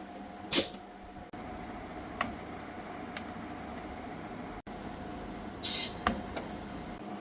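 Steady workshop hum with a few short sharp clicks or taps and two brief hissing bursts, one near the start and one just past the middle.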